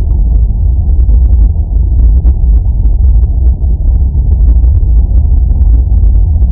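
Airliner cabin noise in flight: a loud, steady low rumble of the engines and rushing air.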